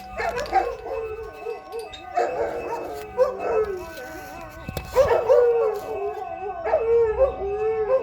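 A dog howling and yowling in wavering, bending calls over the steady tone of a distant Federal Signal 2001-130 outdoor warning siren sounding its test.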